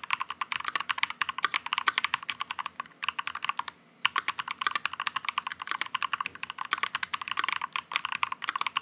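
Fast typing on a mechanical keyboard fitted with lubricated Faker Holy Panda tactile switches (a non-clicky Holy Panda clone), many keystrokes a second, with a brief pause about four seconds in.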